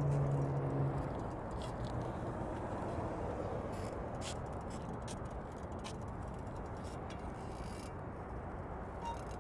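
A car on the move: steady road and engine noise, with a low engine hum that fades away about a second in.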